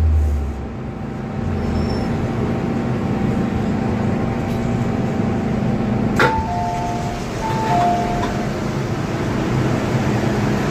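An MTR Island Line M-Train comes to a stop in the station, its equipment humming steadily after a low rumble fades at the start. About six seconds in there is a sharp click, then the door chime sounds two falling two-note dings before the doors open.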